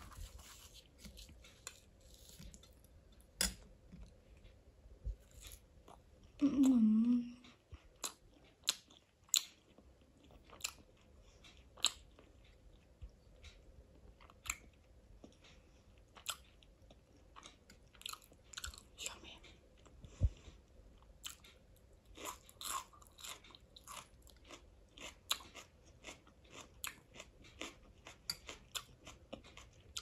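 Close-miked eating: chewing with crunchy bites of fried puri and many small wet mouth clicks, steady through the whole stretch. About six seconds in, a short low hum from the eater is the loudest sound.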